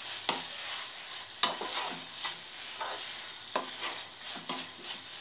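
Wooden spatula stirring and scraping mashed elephant apple around a non-stick pan, with a steady sizzle of the mixture frying underneath. The spatula's scrapes and knocks against the pan come irregularly, the sharpest about one and a half seconds in.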